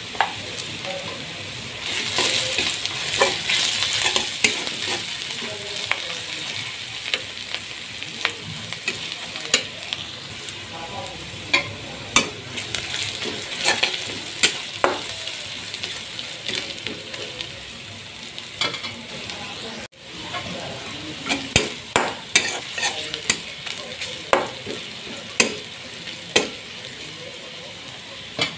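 Sliced onions and spices frying in oil in a wok with a steady sizzle, while a spatula stirs and scrapes them, knocking sharply against the pan many times at irregular intervals.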